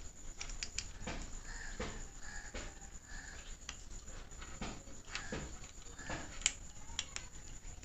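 Small plastic clicks and ticks from a two-pin plug top being handled, with its cover cap pressed on and fitted around the screwdriver; a sharper click comes about six and a half seconds in.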